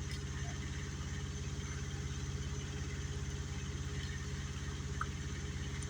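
A large engine idling steadily with a fast, even throb.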